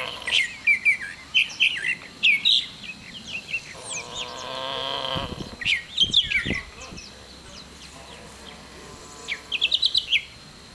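Small birds chirping over and over, with a quick run of chirps near the end; these are the loudest sounds. About four seconds in, a pig snores once, a long low drawn breath lasting about a second and a half.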